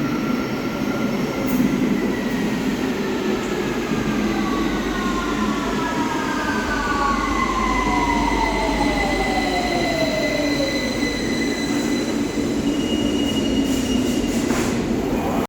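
London Underground 2009 Stock (Bombardier Movia) tube train braking into a platform: the whine of its traction motors falls steadily in pitch as it slows, over a steady rumble of wheels on rail. A few steady high tones follow, with a brief rush of noise near the end.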